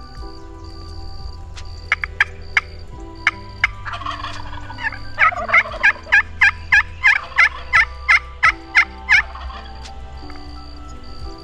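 Rio Grande wild turkey calling: a few sharp clucks, a rapid rattling gobble about four seconds in, then a run of about a dozen loud yelps, each dropping in pitch, about three a second. Faint background music underneath.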